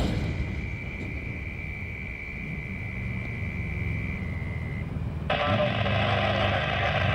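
Freight train boxcars rolling past with a steady low rumble, a thin high whine over it for the first few seconds. About five seconds in, a harsh burst of hiss starts abruptly and lasts about two seconds.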